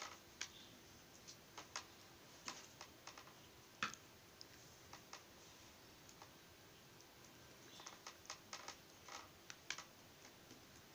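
Faint, scattered small clicks and taps of a paper cut-out being handled and pressed down onto a paper mask on a tabletop, with a slightly louder tap about four seconds in and a quick run of taps near the end.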